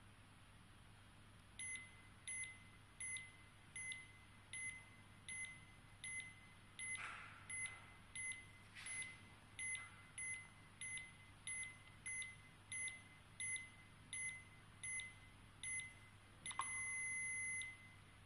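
Electronic blood pressure monitor beeping during a measurement: a steady run of short, high beeps about one and a half a second as the cuff pressure falls, one beep per detected heartbeat, then a single longer beep near the end signalling that the reading is complete.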